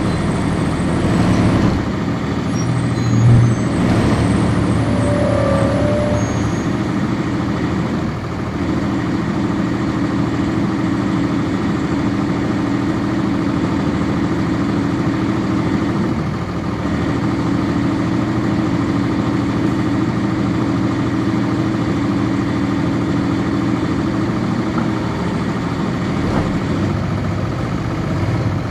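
The Cummins ISC straight-six diesel of a 1999 NovaBus RTS transit bus, heard from inside the cabin, running steadily with an even drone. There is one loud thump about three seconds in.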